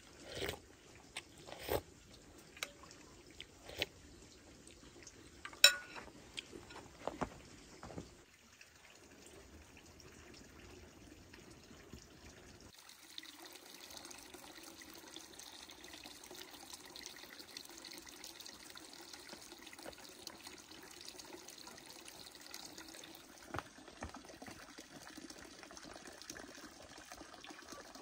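Several sharp knocks and clinks over the first eight seconds, the loudest about five and a half seconds in. Then, after a short quieter gap, water runs steadily from about thirteen seconds on.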